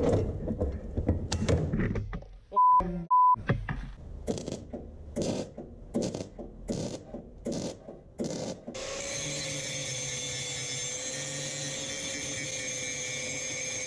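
Arc welding on steel pipe, crackling in short irregular bursts with pauses, broken by two short loud beeps about three seconds in. About nine seconds in, an angle grinder starts grinding the weld with a steady whine and keeps running.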